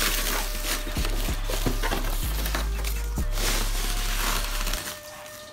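Plastic bag crinkling and rustling as a computer monitor is pulled out of its protective plastic wrapping; the rustling stops near the end.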